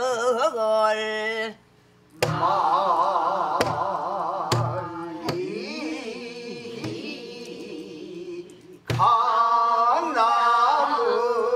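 A woman sings a pansori line in a full voice with wide, wavering vibrato, with a handful of buk barrel-drum strokes marking the rhythm. Her voice breaks off briefly about a second and a half in, then picks up again with a drum stroke.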